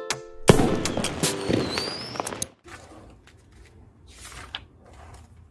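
An electronic intro jingle ends about half a second in and gives way to a loud crackling sound effect with a rising whistle, lasting about two seconds. After that comes faint rustling of notebook paper.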